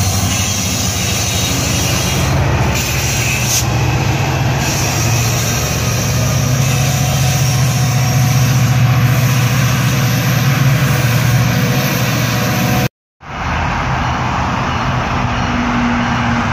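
GO Transit MP40PH-3C diesel locomotive running under power as its train moves past, a steady low engine drone that swells a little in the middle. The sound drops out completely for a moment about thirteen seconds in, then a steady rumble of a train follows.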